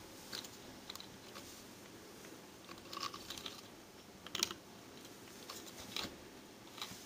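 Faint, scattered clicks and taps of a plastic Transformers action figure being handled: its legs and jointed parts are shifted and set back down on the tabletop. The loudest click comes about four and a half seconds in.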